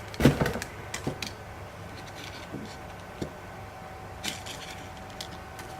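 Handling noise from enamel pins and their card packaging being moved about: a sharp knock about a quarter second in, the loudest sound, then scattered light clicks and taps over the next few seconds.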